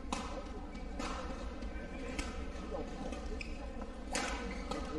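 Badminton rackets striking a shuttlecock in a rally: four sharp hits at irregular intervals of about one to two seconds, the loudest, an overhead shot, about four seconds in.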